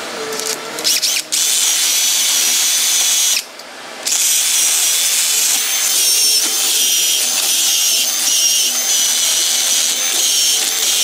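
A cordless power tool spinning an abrasive disc against a truck's rusty front wheel hub face, grinding the rust off before a new brake rotor is fitted. It is a steady high-pitched grinding whine that stops briefly about three and a half seconds in, then runs on.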